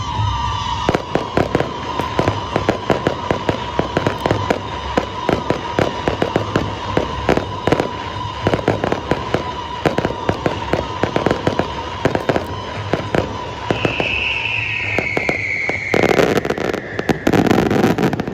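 Aerial fireworks going off in rapid bangs and crackles, over a steady high whistle. A falling whistle comes in about two-thirds of the way through, and the display ends in a dense, loud barrage.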